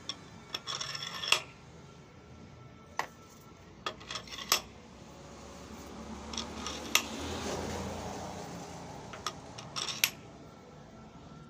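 Heavy turned steel collars clinking and knocking against one another and against a steel shaft as they are slid onto it by hand: about ten sharp metal clinks at uneven gaps, over a low steady hum.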